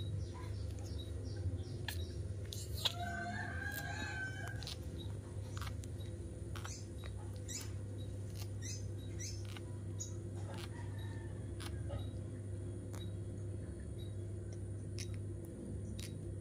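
A rooster crowing once, about three seconds in, with short high bird chirps scattered throughout over a steady low hum.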